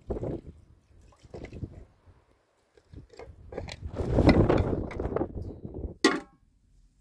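Water poured from a plastic jug over a fish and into a plate, in a few short splashes, then a longer, louder splash as the plate's water is tipped out onto stone. A brief sharp knock near the end.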